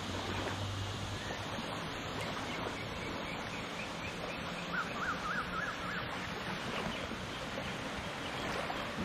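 Small waves lapping on a sandy shore in shallow water, a steady soft wash. About five seconds in comes a short run of quick high chirps.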